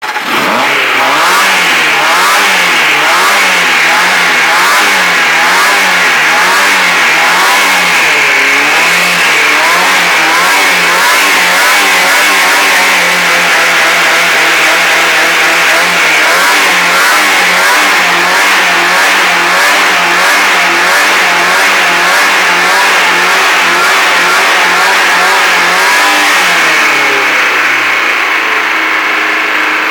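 Fiat Premio four-cylinder engine being revved over and over, its pitch rising and falling about once a second. Near the end it settles to a steady idle.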